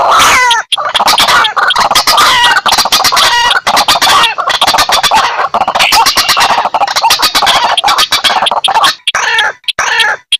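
Bird-lure recording of white-breasted waterhens (ruak-ruak) and sintar ladang rails calling together: a loud, dense run of repeated, overlapping calls that thins to a few separate calls near the end.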